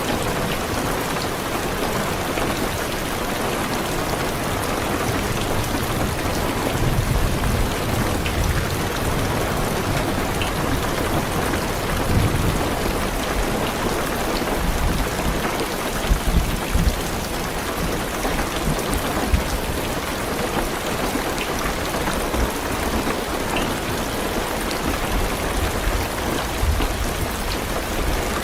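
Heavy rain drumming on a car's roof and windows, as a steady hiss. Low rumbles of distant thunder swell and fade several times.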